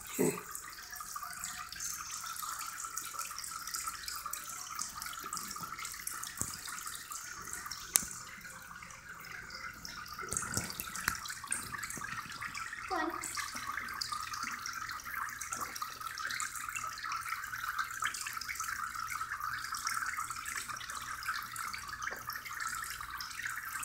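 Steady running water in an indoor pond, an even trickling hiss, with a single sharp click about eight seconds in.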